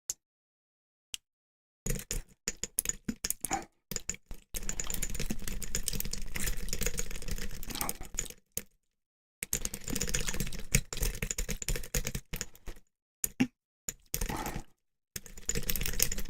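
Lock pick and tension wrench working the pins of a Thumper 5200 pin-tumbler padlock: rapid small metallic clicks and scraping in bursts, with a longer steady stretch of scraping from about four to eight seconds in.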